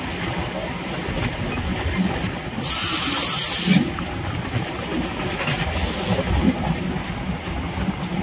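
Suburban EMU electric train running, heard from its open doorway: a steady rumble of wheels on rails with rushing air. A loud hiss lasts about a second, about three seconds in, and a shorter, fainter hiss comes near six seconds.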